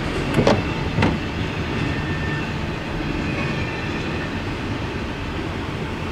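CSX double-stack container freight train rolling past, a steady rumble of wheels on rail heard from inside a vehicle, with two sharp clicks about half a second and a second in.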